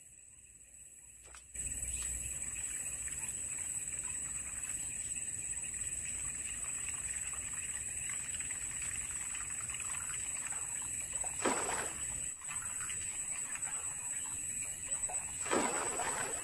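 A topwater lure being worked across the surface with a steady churning of water, then two heavy splashes, one about two-thirds of the way through and one near the end, as a giant snakehead strikes at the lure.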